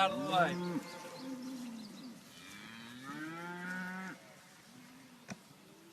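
Cattle mooing: several pitched calls that rise and fall, the longest lasting about a second and a half, with a single sharp click near the end.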